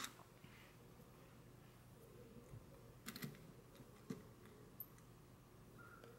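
Near silence with faint handling sounds of metallic star confetti being picked up and pressed onto a wooden fidget spinner: a brief cluster of light clicks and rustles about three seconds in, then a couple of single ticks.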